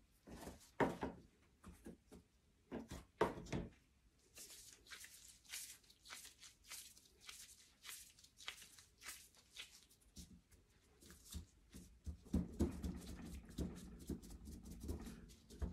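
Faint, irregular sticky crackling and tearing as gloved hands knead and pull apart a lump of bubble dough. In the last few seconds it thickens into denser soft thuds and rustles as the dough is pressed down into a plastic cutter stamp on a steel table.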